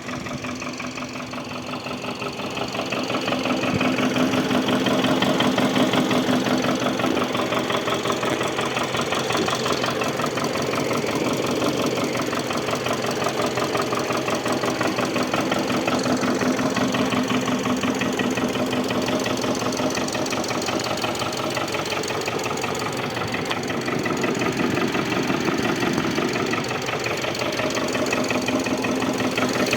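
Subaru flat-four boxer engine running with a rapid, steady knock coming from the front of the engine, under the timing belt cover; it gets louder about four seconds in. The knock is a worn timing belt tensioner pulley, not a failing fourth cylinder.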